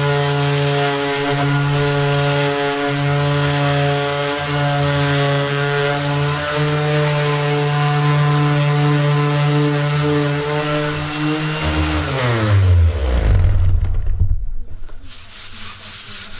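Cordless random orbit sander running steadily on plywood with an even motor hum. About twelve seconds in it is switched off and winds down with a falling pitch. Near the end a hand brushes the sanding dust off the board.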